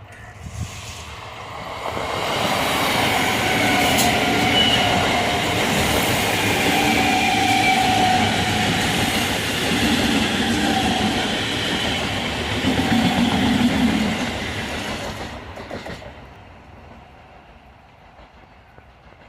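Train passing close by on the rails: the sound builds over the first couple of seconds, stays loud for about twelve seconds as the coaches run past, then dies away over the last few seconds.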